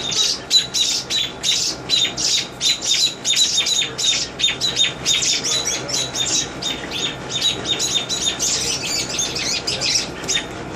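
Parent birds giving rapid, harsh alarm calls, about four or five a second without a break: distress at a rat snake seizing their nestling.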